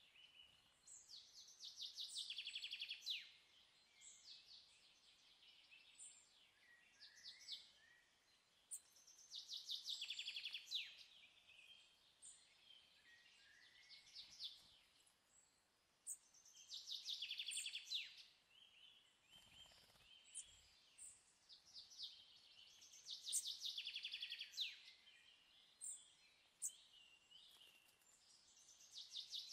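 Faint birdsong: a songbird repeats a rapid trilled phrase about every seven seconds, with short chirps between the phrases.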